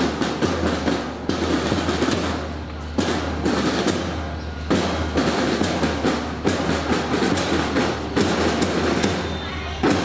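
School Young Pioneer drum corps playing a rapid marching drum beat, quick crisp snare strokes running in repeated phrases.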